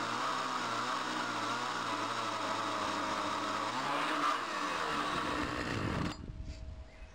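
Chainsaw engine running steadily at high revs, its pitch dipping and recovering about four seconds in, then cutting off abruptly about six seconds in.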